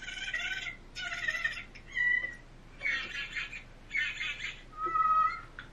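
Reconstructed Velociraptor vocalizations from a dinosaur vocalization study: six short rasping calls, about one a second, two of them ending in a brief whistle-like note.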